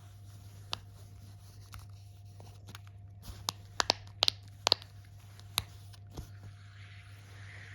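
Fidget toy being handled, giving a scattered series of sharp little clicks, bunched a little past the middle, over a steady low hum.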